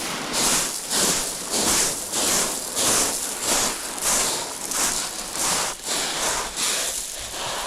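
Footsteps crunching on shingle pebbles: a steady walking rhythm of about two crunches a second.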